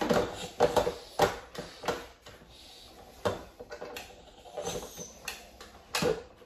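Lid of an electric pressure cooker being set on the pot and closed, with a series of light clicks and knocks.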